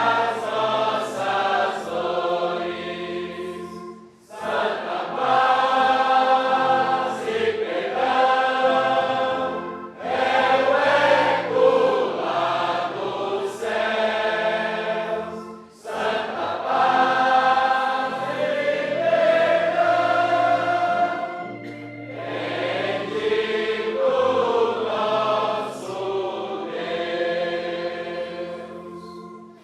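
Choir singing a Portuguese gospel hymn in long phrases, with brief pauses about every six seconds and steady low notes held underneath.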